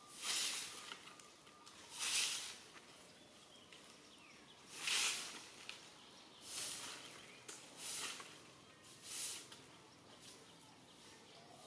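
Short hissing rustles, about six of them at uneven intervals, each lasting about half a second, over a faint steady outdoor background.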